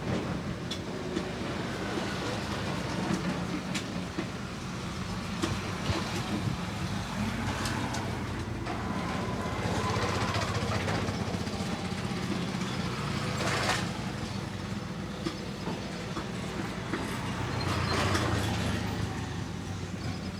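Steady low rumble of street traffic, with scattered short clicks and rustling noises over it; two louder rustling swells come around the middle and near the end.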